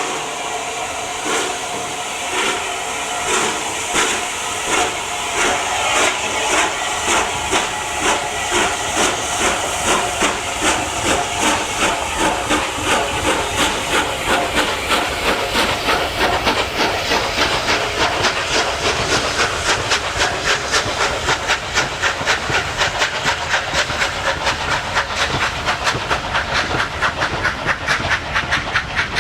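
Steam locomotive pulling away: a steady hiss of steam with exhaust beats that start at about one a second and quicken steadily to several a second.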